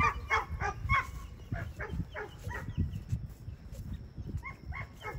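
A dog barking in short, repeated yips: a quick run of about four in the first second, then scattered fainter ones.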